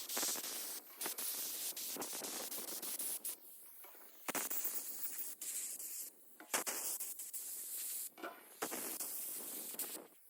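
Sandblaster blasting abrasive onto a rear brake caliper: a harsh, steady hiss that comes in about five bursts of one to two seconds, with short breaks between them as the trigger is released.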